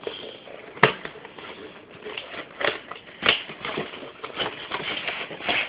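A toy's clear plastic blister pack crackling and clicking as hands pull and bend it open, with a sharp click about a second in and scattered smaller ones after.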